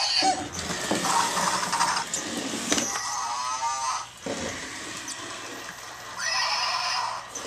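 Zhu Zhu Pet robotic hamster toy running through its plastic playset: its small motor whirring and its wheels rattling and scraping on the plastic track, with a few short electronic chirps.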